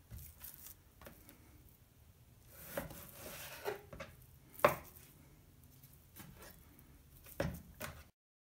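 Large chef's knife slicing through a raw beef roast on a plastic cutting board, with a few sharp taps of the blade on the board, the loudest about four and a half seconds in. The sound cuts off suddenly near the end.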